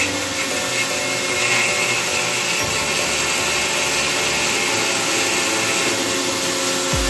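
Resemin Raptor 55 2R long-hole drilling rig drilling rock with a 64 mm bit: a loud, steady mechanical noise with a steady whine running through it.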